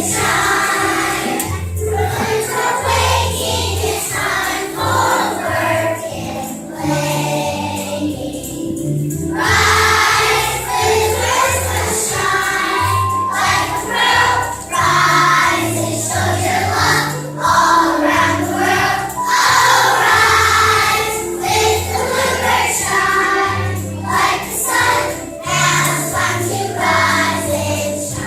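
A group of voices singing with musical accompaniment, over a bass line that steps from note to note.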